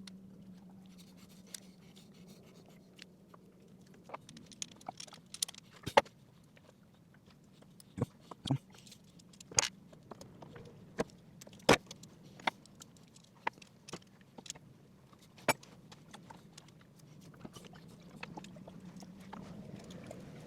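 Scattered sharp metallic clicks, clinks and knocks of hand tools and parts being handled while a starter solenoid is swapped on a Yanmar marine diesel, over a steady low hum.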